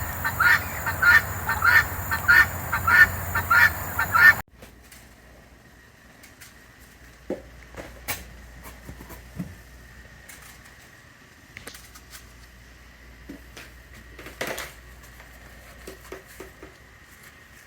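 Guinea fowl screaming over and over, about three calls a second: a lone bird separated from its flock. The calling cuts off suddenly about four seconds in, leaving a quiet background with scattered light clicks and knocks.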